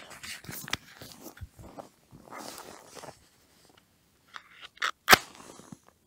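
Footsteps and handling crunching in snow. Near the end comes a short scratch and a sharp, loud snap as a match is struck and flares.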